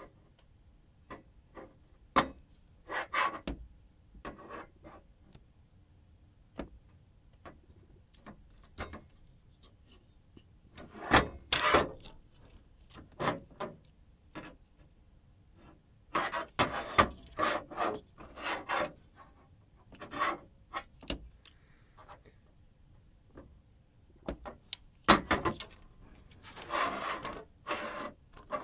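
Handling noise from a small metal-framed LCD prism block being held, turned and prodded with a thin tool: short rubs, scrapes and clicks at irregular intervals, with quiet gaps between.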